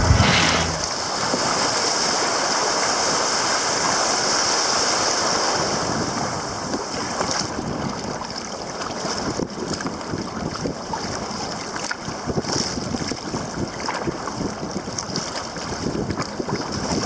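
Choppy sea water slapping and splashing against a sea kayak's hull, with wind buffeting the deck-mounted microphone. A steady rush for about the first six seconds, then more uneven, broken splashing.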